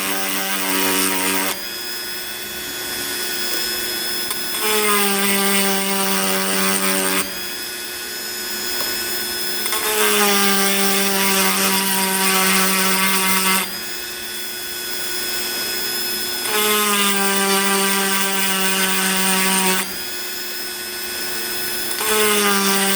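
Dremel rotary tool with a cone-shaped grinding stone running at low speed, sharpening chainsaw chain cutters. The motor's whine changes every few seconds between a louder steady tone and a hissier, quieter grinding sound as the stone is worked against each tooth.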